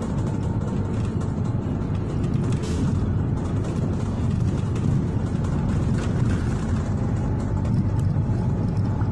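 City bus engine and road noise heard from inside the cabin while the bus is under way, a steady low rumble.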